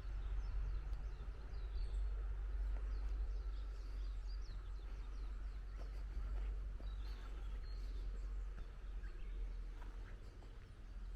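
Outdoor ambience: a steady low rumble with scattered short bird chirps throughout.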